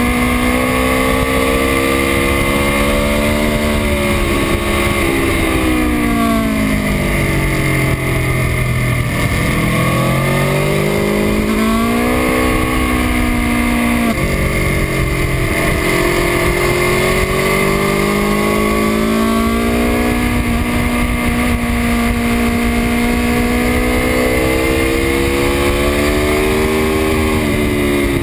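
2018 Aprilia Tuono V4 1100 RR's V4 engine under hard riding: revs held high, then falling in steps to a low point about ten seconds in, climbing again through the gears, dipping once more and holding high before dropping near the end. A steady rush of wind noise runs underneath.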